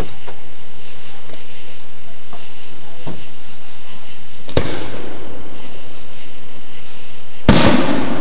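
Aerial fireworks bursting: a sharp bang about halfway through and a louder bang near the end, trailing off in crackle. Crickets chirp steadily throughout.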